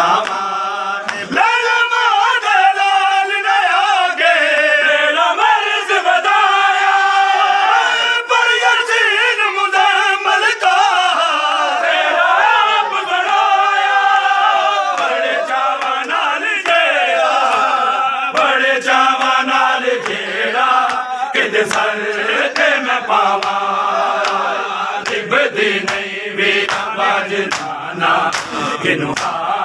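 Crowd of men chanting a noha, a Shia mourning lament, in unison. Sharp slaps of chest-beating (matam) join in, more often in the second half.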